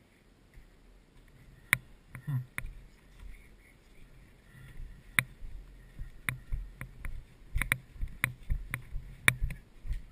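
Irregular sharp clicks and knocks with dull thumps beneath, about ten in all: movement and handling noise on a body-worn action camera while walking.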